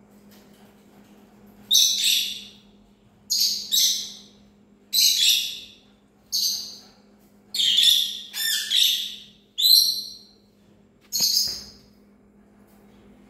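A parrot calling in a series of loud, shrill calls, about nine in ten seconds, each lasting around half a second. A faint steady hum runs underneath.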